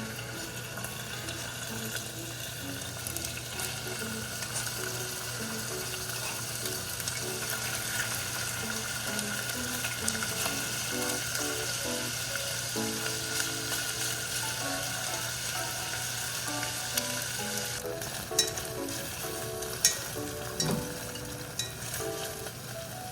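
Food sizzling as it fries in a pan and is stirred. The sizzle drops away about three-quarters of the way through, leaving a few sharp knocks.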